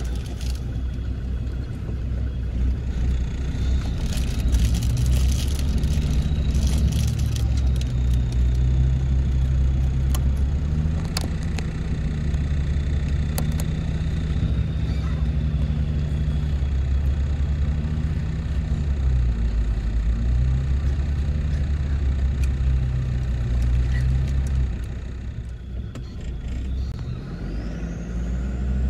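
Land Rover Discovery Td5's five-cylinder turbodiesel running at low revs off-road, its note shifting slightly, with scattered knocks. It goes quieter briefly near the end, then a rising whine sets in.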